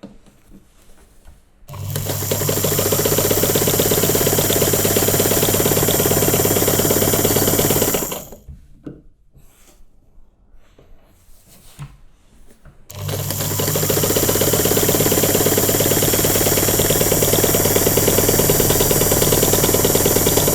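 Electric sewing machine stitching in two runs of about six seconds each, each starting with a quick rise to a steady, fast needle chatter over a low motor hum. Between the runs there is a pause of about five seconds with a few faint clicks.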